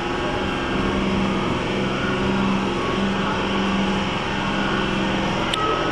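Steady engine drone of a passenger train idling at the platform, with a low held hum.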